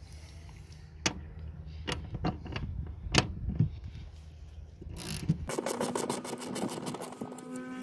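Socket ratchet wrench clicking in a quick, even run while it turns a 14 mm seat-rail bolt, after a few separate knocks and taps of the tool being fitted.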